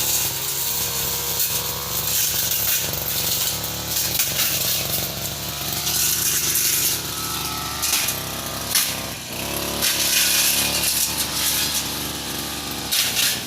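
Petrol brush cutter fitted with a steel blade, running at steady high speed, with a rasping hiss that swells and fades again and again.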